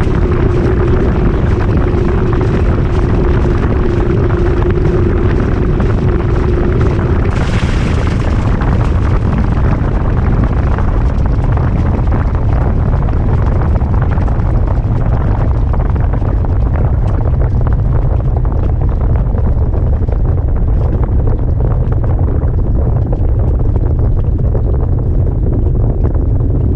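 Heavy, steady rumble heard from inside the drum of a GE GTW220ACKWW top-loading washing machine during its final high-speed spin. A steady motor hum cuts off about seven seconds in with a brief hiss. The rumble then carries on while its higher hiss slowly fades as the spin winds down.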